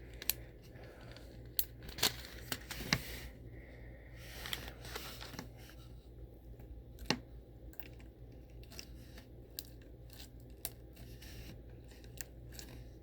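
Slime being handled with add-ins from a plastic bag: scattered small clicks, pops and crinkles, irregular and sharp, over a steady low fan hum.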